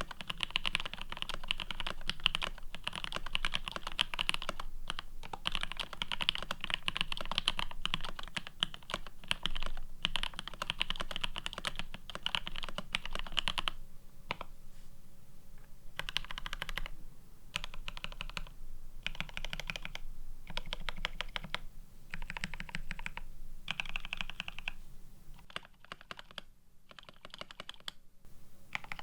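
Typing on a GRID650 mechanical keyboard with C³Equalz x TKC Banana Split linear switches, plateless PCB-mounted, with GMK Olivia++ keycaps. It starts as fast continuous typing, then about halfway through breaks into short bursts of keystrokes with brief pauses between them.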